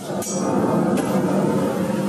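Steady machine noise in a bandsaw-blade shop, with two sharp clicks about a quarter second and a second in.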